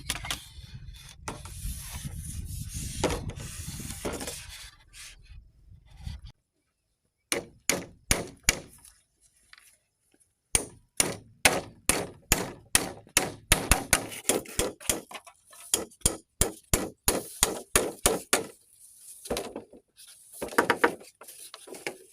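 Wood being sawn by hand: rapid back-and-forth rasping strokes, about three a second, in several runs with short pauses, after a few seconds of rough rubbing and handling noise.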